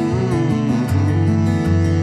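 Background music led by guitar, with a wavering lead melody that gives way to steady held notes about a second in.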